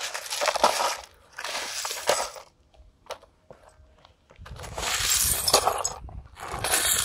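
Crushed wall clocks' broken plastic cases and cracked covers crunching and clinking as they are handled, in four crackling bursts of about a second each.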